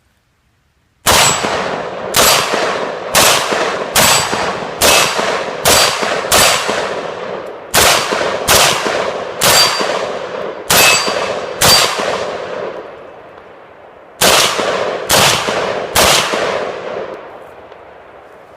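Mini Draco AK-pattern pistol in 7.62x39 fired in steady semi-automatic shots, about one a second, each echoing away. Thirteen shots, a short pause, then three more.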